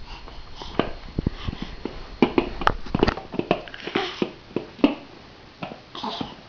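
A baby making short, breathy vocal sounds and mouth clicks, one after another, with a few knocks near the start.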